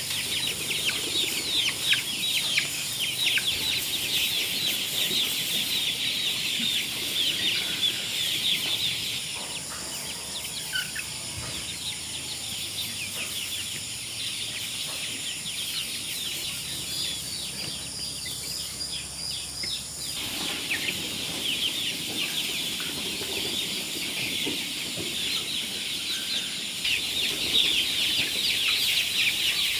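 A flock of chickens cheeping and clucking in a dense stream of short high calls. The calls thin out in the middle and grow busy again over the last several seconds.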